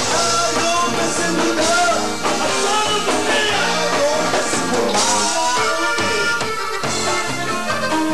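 Live band music led by a button accordion playing a wavering melody over a steady bass line and drums.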